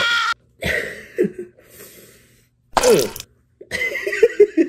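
A man laughing and making short wordless vocal sounds, with one quick cry falling in pitch about three seconds in. Just after the start, the tail of a louder, noisy sound cuts off abruptly.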